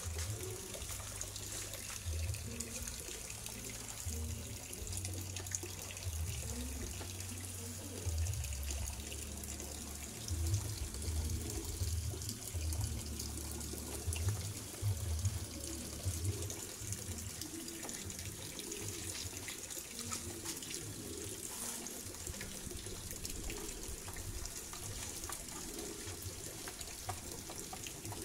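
Tap water running steadily into a plastic tub, a continuous splashing hiss. Uneven low rumbles come and go through roughly the first half.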